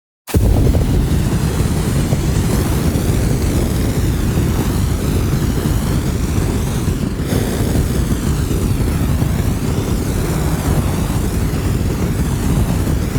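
A large fire burning steadily: a dense, continuous rush of flame noise, heavy in the low end, that starts abruptly just after the beginning.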